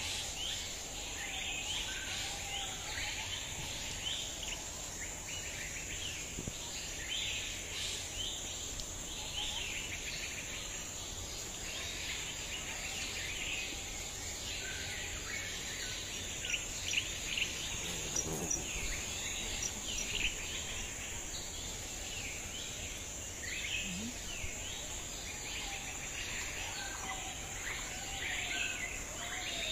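Birds chirping in many short calls over a steady, high-pitched insect drone.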